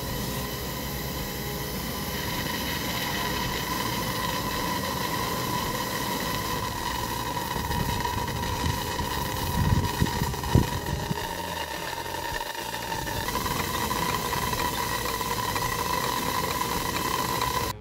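Steam hissing steadily out of a homemade coal-fired steam boiler under pressure, carrying a constant whistling tone. A few low thumps come about ten seconds in.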